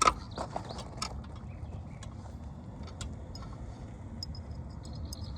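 Sharp knocks of a hammer driving a roofing nail through a roof snake under an asphalt shingle. A loud knock comes right at the start, several lighter taps follow within the next second, and there is one more about three seconds in, over steady low background noise.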